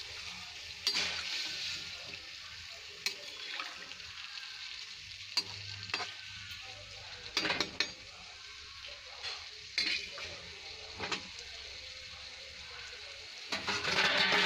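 Potato, cauliflower and pea curry sizzling and simmering in its spiced gravy just after water has been added, while a metal spatula stirs it and clicks against the pan now and then. The sizzling grows louder in the last second.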